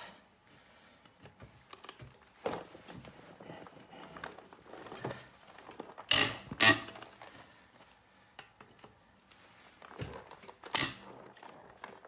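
Lug nuts on a steel wheel being broken loose with a socket and breaker bar: sharp metallic cracks as nuts give way, with clinks of the socket going onto the nuts. The loudest two cracks come close together about six seconds in, and another comes near the end.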